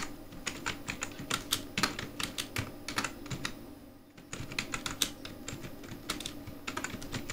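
Typing on a computer keyboard: an irregular run of quick key clicks, with a short pause about four seconds in.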